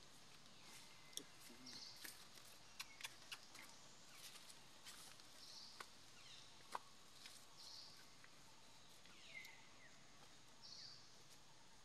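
Quiet outdoor ambience: a low hiss with short, faint high chirps every two to three seconds and scattered small sharp clicks.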